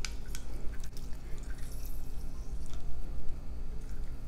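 A lemon half squeezed by hand through a small strainer, the juice dripping with faint scattered ticks and small clicks, over a steady low hum.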